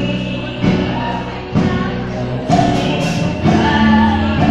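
Children's choir singing a gospel song with instrumental accompaniment, moving on a slow steady beat of about one chord a second.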